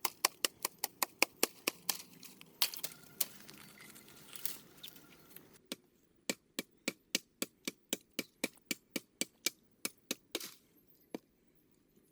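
Rapid, evenly spaced chopping strikes, about four to five a second, of a blade cutting into bamboo or wood. About halfway through the background noise drops away and the strikes go on a little more slowly, with one last knock near the end.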